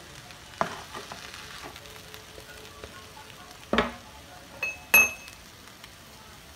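Potato-and-pea samosa filling frying softly in a pan while it is stirred, with a few sharp knocks of the spoon against the pan; the loudest, about five seconds in, is a ringing metallic clink.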